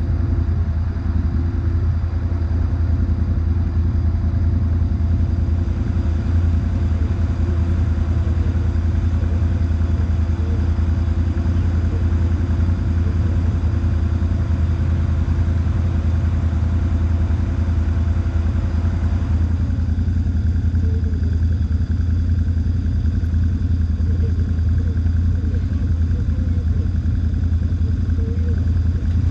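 Quad bike (ATV) engine idling steadily close by, a loud, even low hum; about twenty seconds in its tone shifts slightly.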